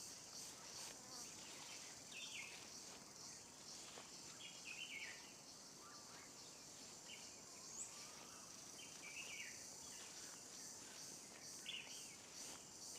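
Very faint nature ambience: scattered short bird chirps over a steady high insect hiss.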